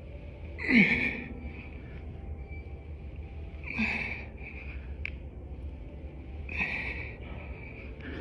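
A man breathing hard from the effort of fast push-ups: three loud, forceful exhalations about three seconds apart. The first, about a second in, is the loudest and carries a short falling grunt.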